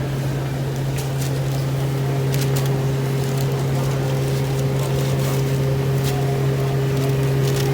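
A steady low mechanical hum with a fainter steady tone above it, and a few light clicks scattered through.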